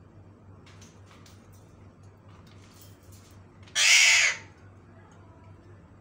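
Alexandrine parakeet giving one loud, harsh screech about four seconds in, lasting under a second, with a few faint clicks before it.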